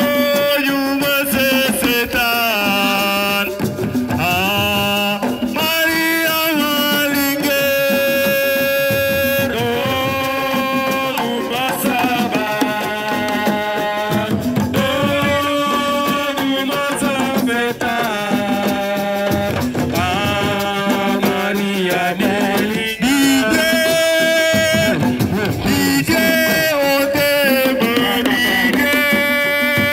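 Music: a sung melody with long held, sliding notes over drums and percussion, playing throughout.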